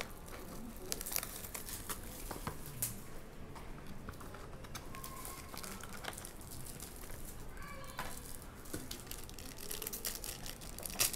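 Plastic wrapping and a foil trading-card pack crinkling and tearing as they are handled and opened, with scattered small clicks and rustles.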